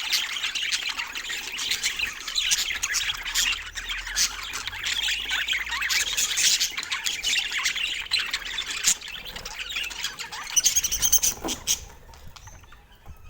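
Budgerigars chirping and chattering in a dense, continuous stream of quick high chirps and squawks, which thins out sharply near the end.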